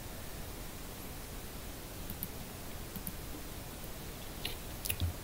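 Quiet room tone: a steady faint hiss with a few short, faint clicks scattered through it, several of them near the end.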